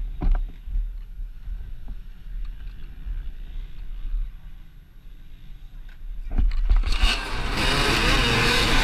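Low wind rumble on the microphone with a few clicks, then about six and a half seconds in a pack of enduro dirt bikes revs up loudly and pulls away together at a mass race start. The many engine notes rise and fall over one another.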